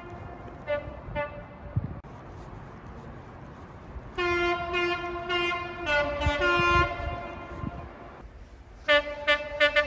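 Multi-chime train horn sounding a chord over the low rumble of the train: a couple of short toots about a second in, a long blast from about four to seven seconds, then a run of quick short toots near the end.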